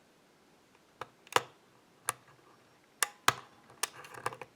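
Sharp metallic clicks of a lock pick working the pins of a pin-tumbler challenge lock held under light tension. A few scattered clicks at first, then quicker ones over the last second and a half.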